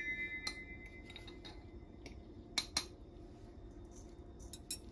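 Light metallic clinks and taps of a spoon against a stainless steel bowl while cumin powder is measured and sprinkled over chicken: a ringing clink fades in the first second, then two small taps near the middle and a few quick clicks near the end.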